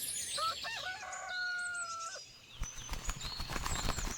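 A rooster crows, a few short notes and then one long held note, over small birds chirping. In the last second and a half comes a fast run of taps and knocks.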